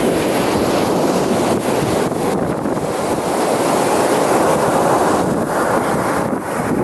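Ocean waves washing onto the beach, a steady rush of surf, mixed with wind buffeting the microphone.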